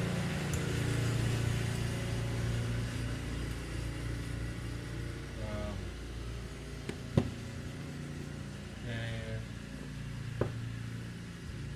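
Low steady engine hum that slowly fades, with two sharp clicks of small parts being handled at the workbench, the first about seven seconds in and the second about three seconds later.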